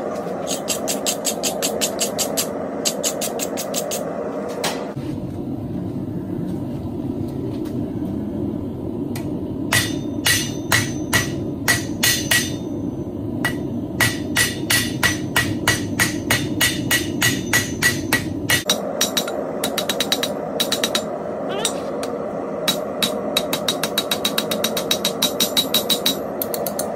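Blacksmith's hammer striking metal on an anvil in runs of blows, forging a feather shape. First comes a quick run of light taps, then a longer run of slower ringing blows, then another quick run near the end, all over a steady low rushing noise.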